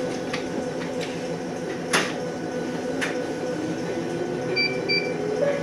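Electric train running, heard from on board: a steady hum with a few sharp clicks, and a motor whine rising slowly in pitch in the second half as it picks up speed. Two short high beeps sound near the end.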